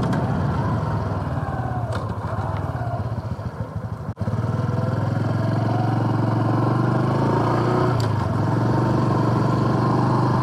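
2019 Honda Super Cub C125's single-cylinder engine running as the bike is ridden at low speed. It is quieter for the first few seconds; after a brief break in the sound about four seconds in, it runs louder and steady.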